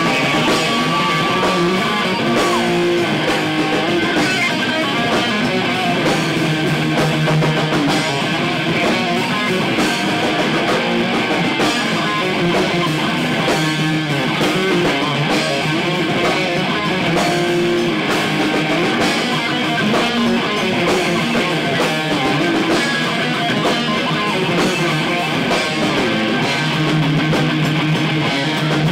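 Heavy metal band playing live and loud, with electric guitars and bass guitar.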